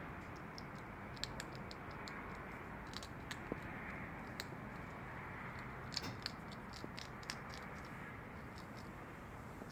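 An animal crunching dry pet food: irregular, sharp crunches, a few seconds apart or in quick clusters, over a steady background hiss.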